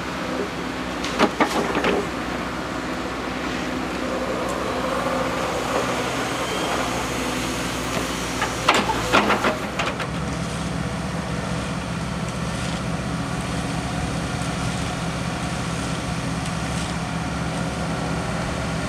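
Diesel engine of a Liebherr A904C wheeled excavator running steadily, with two short clusters of sharp metal clanks, about a second in and about nine seconds in. The engine drone grows heavier about halfway through.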